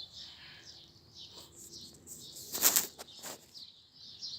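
Small birds chirping repeatedly in the background, with two short rustling bursts a little after halfway, the first the louder.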